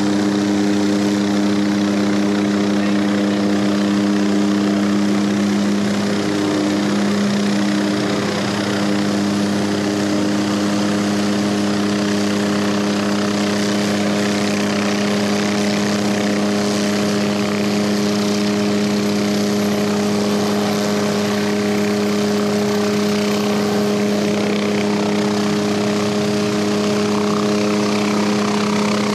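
Helicopter running close by: a steady engine and rotor drone that holds one pitch, wavering briefly a few seconds in.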